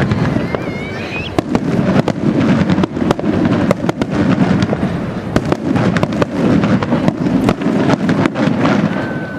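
Fireworks display at full barrage: many shells bursting in quick succession, a dense crackle of reports over a continuous rumble.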